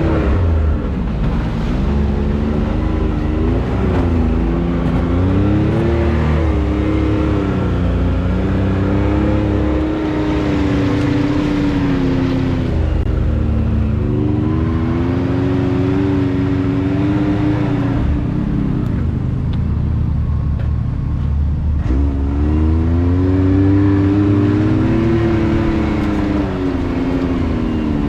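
Side-by-side UTV engine driven on a trail under changing throttle, its pitch rising and falling again and again over a low rumble. It eases off for a few seconds about two-thirds through, then picks up again.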